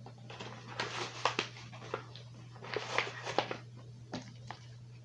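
Clicking and rustling as a box of mechanical pencils and its cardboard packaging are handled, in two clusters of quick small sounds about a second in and about three seconds in, over a steady low hum.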